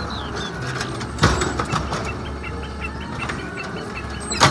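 Automated side-loader garbage truck running steadily while its hydraulic arm holds a wheeled recycling cart tipped over the hopper to empty it. Two loud bangs come from the cart against the truck, about a second in and near the end.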